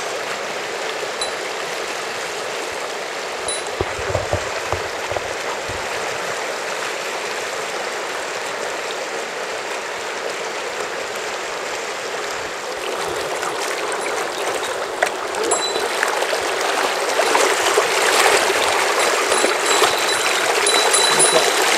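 Shallow river rushing over rocks and riffles, a steady wash of water that grows louder in the second half.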